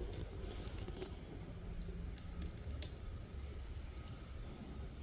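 Quiet outdoor background: a steady low rumble with a few faint clicks, and one sharper click a little under three seconds in.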